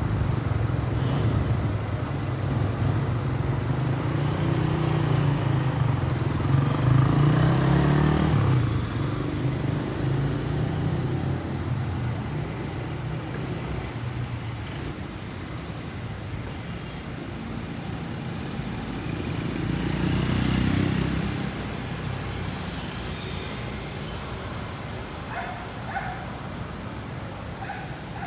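Street traffic: motor vehicle engines running and passing, two of them swelling louder and fading, over a steady background rumble.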